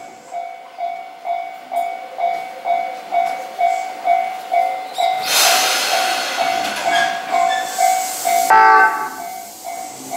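Railway crossing alarm bell ringing about twice a second beside a two-car electric commuter train waiting to depart. About five seconds in comes a burst of air hiss, and near the end the train sounds a short horn blast.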